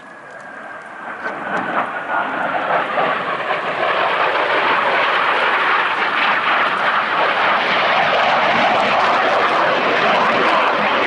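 Boeing F/A-18 Super Hornet jet flying past, the sound of its twin turbofan engines. The noise builds over the first few seconds, then holds steady and loud, with a whine falling in pitch over the first three seconds.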